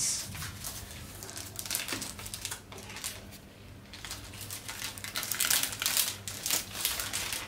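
Clear plastic packaging sleeve crinkling and crackling irregularly as a keyboard is handled and slid out of it, dying down for a moment about three seconds in.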